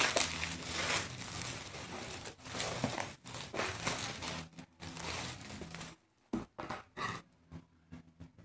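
Plastic bubble-wrap packaging crinkling and rustling as a cardboard box is pulled out of it, then a few short, sharp snips as scissors start cutting into the box near the end.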